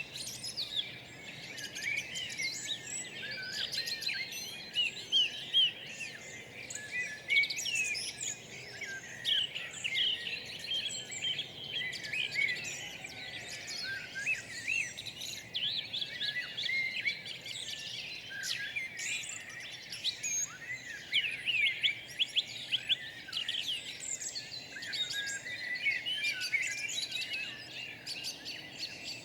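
Many songbirds singing and chirping at once, a dense, overlapping chorus of short high calls, over faint steady background noise.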